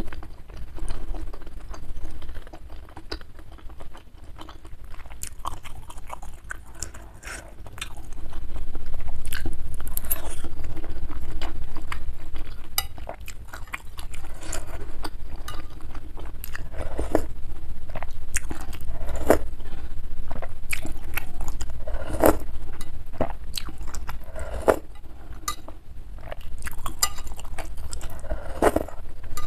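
Close-miked chewing and wet mouth sounds of eating beef meatballs and boiled egg, with many short sharp clicks.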